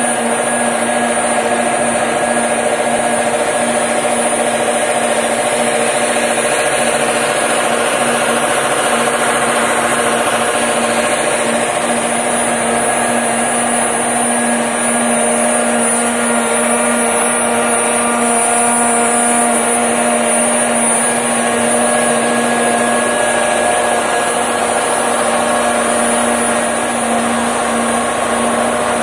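Automatic straight-seam welding machine laying a continuous arc weld: a steady, unbroken buzzing hiss over a constant low hum.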